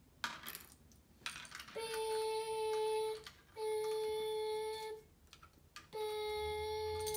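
A child's voice making three long, steady-pitched "beep" sounds as a toy-truck sound effect, each held for over a second, after a couple of clicks of plastic LEGO pieces.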